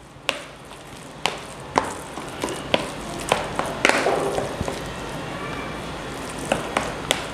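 A hand kneading wet minced mutton mixed with egg in a plastic bowl: wet squishing, broken by irregular sharp slaps about once a second.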